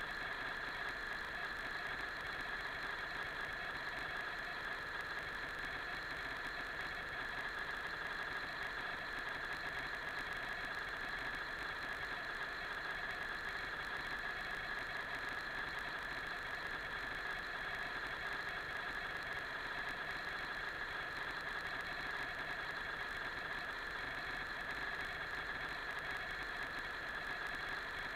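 A steady, unchanging mechanical hum with hiss, no strikes or voices in it.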